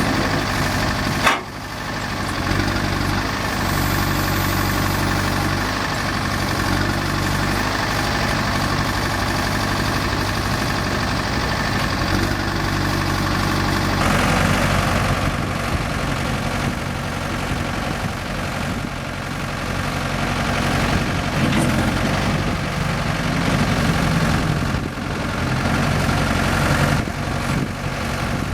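New Holland TC40D compact tractor's diesel engine running steadily, with one sharp knock about a second in. The engine note turns harsher about halfway through.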